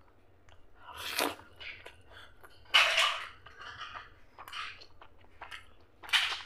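Close-up wet eating sounds of soft mutton fat curry and rice eaten by hand: irregular squelching, smacking bursts of chewing, the loudest about three seconds in.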